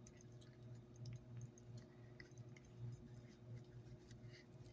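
Near silence: faint scattered ticks and soft squeaks from paracord being handled and pulled tight in a cobra weave, over a steady low hum.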